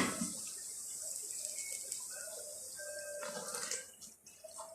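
Tomato sauce simmering in a pot, with soft scattered bubbling pops over a steady hiss that stops about four seconds in. The sauce is starting to cook down.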